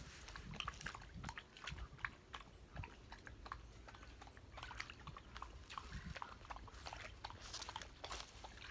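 A Dalmatian lapping at the water's edge: a faint run of soft, irregular wet clicks, several a second.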